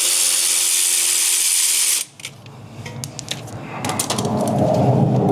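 A powered ratchet spins out a 14 mm brake caliper bolt, running steadily for about two seconds and then stopping. Scattered clicks and rough scraping of metal parts being handled follow.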